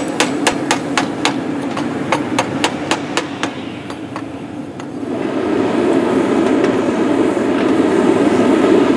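Blacksmith's hammer striking metal, ringing blows about three a second, which stop after about three and a half seconds; then the steady noise of the gas forge's burner, growing louder about five seconds in.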